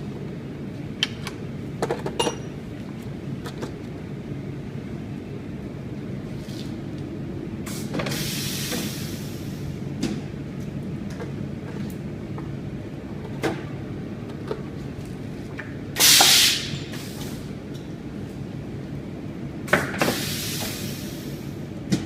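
High-frequency blister welding machine running with a steady low hum, with three hissing bursts of air from its press, the loudest about sixteen seconds in. Scattered clicks and knocks come from plastic blister packs and the mould tray being handled.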